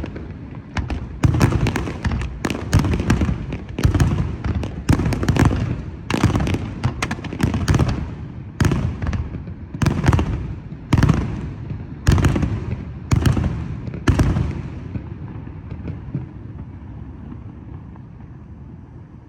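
Fireworks going off in a rapid string of loud bangs, about one or two a second, each followed by a low rumbling echo. The bangs stop about three quarters of the way through and the rumble fades away.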